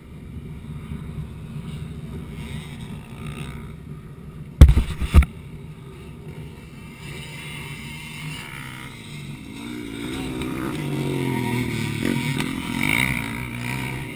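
Motocross dirt bike engines running on the track, a faint drone at first, then revving up and down and growing louder from about ten seconds in as bikes come closer. A loud double bump about five seconds in.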